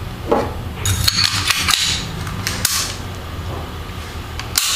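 All-steel CZ pistol slide being slid over the barrel and recoil spring onto the frame and snapped into place: a series of sharp metallic clicks, a cluster about a second in and a last click near the end.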